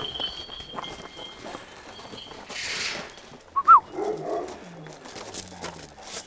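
Large Turkish shepherd dog making brief vocal sounds. The loudest is one short, high whine about halfway through, followed by a lower grunt-like sound.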